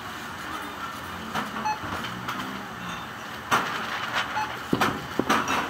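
Busy shop-counter ambience: a steady background din with scattered knocks and clatter of goods being handled, most of them in a cluster from about three and a half seconds in.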